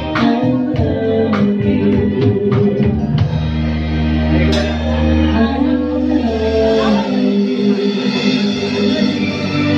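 Live band playing a vocal duet: male and female voices over keyboard, electric guitars, bass guitar and drum kit. The steady drum beat drops out about three seconds in, leaving held chords, with a cymbal crash soon after.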